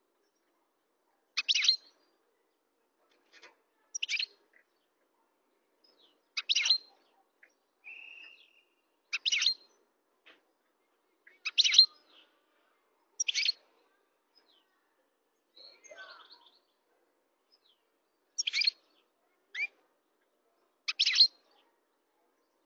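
European goldfinch singing in short twittering phrases, one about every two to three seconds.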